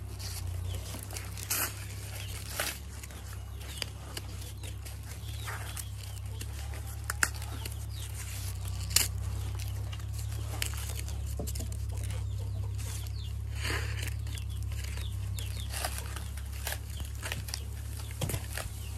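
Dry maize husks being torn and peeled off a corn cob by hand: short, sharp crackling rips at irregular intervals, over a steady low rumble.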